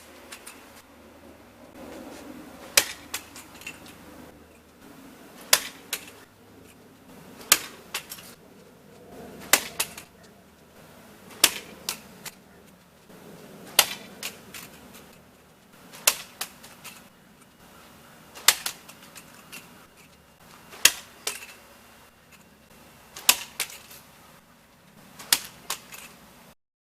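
3D-printed micro drone frame taking repeated hard impacts in a durability test: about a dozen sharp cracks, roughly one every two seconds, each followed by a few lighter clattering knocks.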